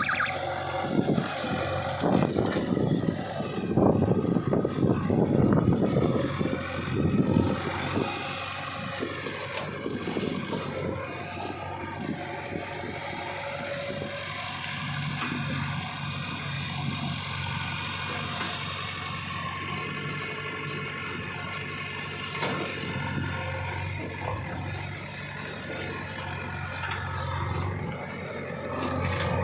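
JCB 3DX backhoe loader's diesel engine running under load as the machine works, loud and uneven for the first several seconds, then settling to a steadier drone.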